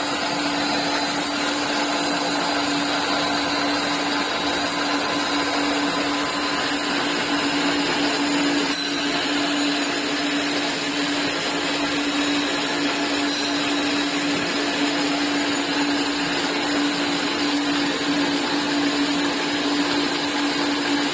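Wooden coffee stirrer chamfering machine running steadily: a constant motor hum over a dense hiss as its cutters round off the ends of the sticks.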